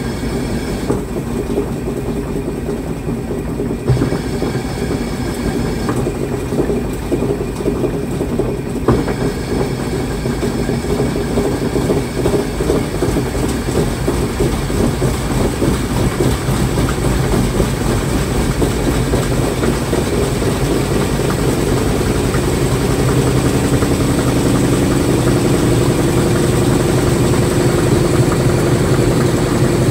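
Washing machine running a wash cycle with clothes inside: a steady mechanical churning that grows slightly louder, with a couple of brief knocks in the first ten seconds and a steady hum coming in about two-thirds of the way through.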